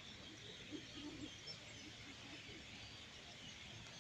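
Faint, steady chatter of a large flock of birds, many calls blending into one continuous din.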